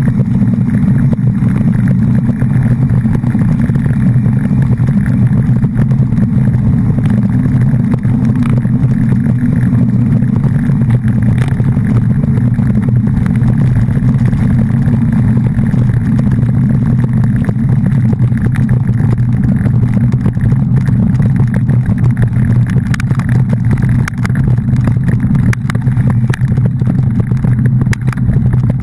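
A vehicle running steadily: a constant low engine and road drone that holds the same pitch throughout, with no revving or gear changes.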